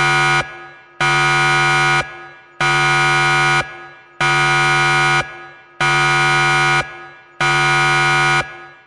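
Countdown timer's alarm buzzer going off as the countdown reaches zero: a low buzz about a second long, repeated about every 1.6 seconds.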